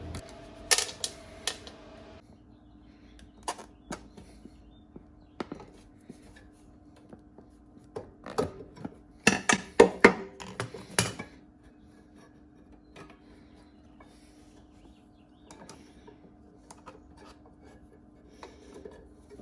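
Hand tools clicking and clinking on a push mower's small carburetor as its bowl screws are worked loose: scattered sharp clicks, with a cluster of louder knocks about eight to eleven seconds in, over a faint steady hum.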